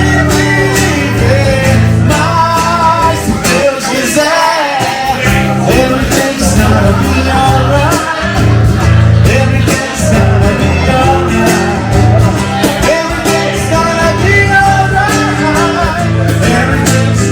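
Music: a song with singing over guitar and a steady bass line.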